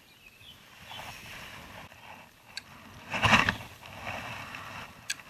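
A short splash about three seconds in as a caught sunfish goes into the lake water, amid rustling and light clicks of handling at the water's edge.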